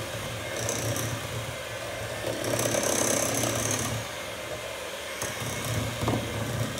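Electric hand mixer running steadily, its beaters churning a thick mix of shortening, sugars and egg in a glass bowl.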